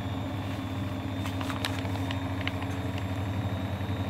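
Front-loading washing machine (7 kg, 1600 rpm) running its intermediate spin, the drum motor giving a steady low hum with a faint high whine. A few light clicks come between about one and two and a half seconds in.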